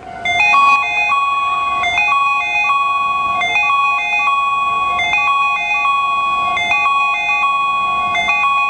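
Railway platform train-approach chime: a loud, harsh electronic jingle of a few high tones, played over and over, warning that a train is approaching the station.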